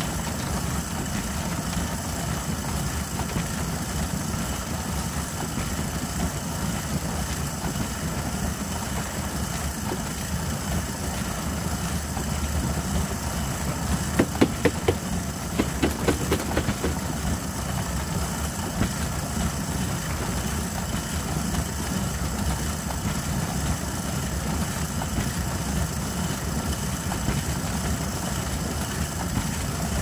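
Trommel sieve running steadily, its mesh drum turning on a caster roller while sifting two-year-old leaf mould. About halfway through comes a short run of sharp knocks.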